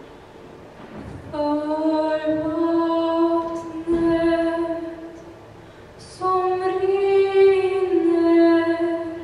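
A woman's voice singing unaccompanied, holding two long notes with a short break between them, the first sliding up slightly as it starts.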